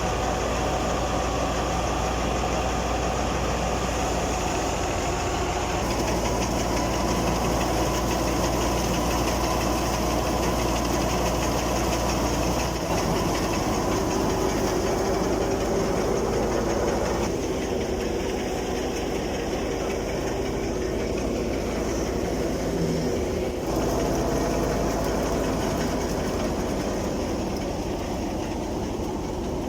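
Tractor-driven wheat thresher running steadily: the tractor's diesel engine hums under the thresher's steady mechanical drone. The sound shifts in character about halfway through and again some seconds later.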